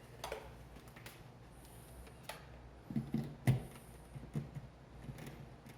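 A few light clicks and knocks of an electrical plug being handled and pushed into a wall outlet, loudest around the middle.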